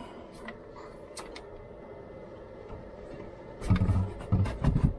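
Low steady background noise, then, starting a little before the end, a cluster of heavy thumps and knocks as a Battle Born 100 Ah LiFePO4 lithium battery is picked up and maneuvered into the battery compartment.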